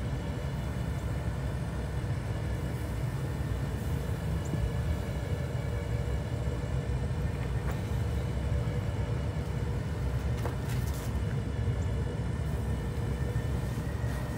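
A steady low rumble with a faint hum, and a few light clicks and knocks scattered through it.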